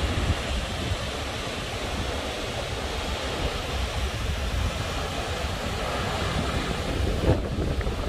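Wind buffeting the phone's microphone: a steady rushing noise with a low rumble underneath.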